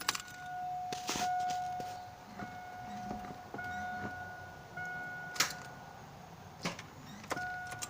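An electronic warning tone beeps over and over, each beep a steady note about a second long, with a few sharp clicks in between. No starter motor or engine is heard: the 2002 Chevy S10 is not cranking.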